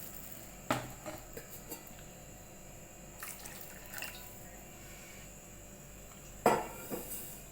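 Cooking utensil knocking against a kadhai holding water and spiced vegetables: two sharp knocks about six seconds apart, with small clinks and liquid sounds between.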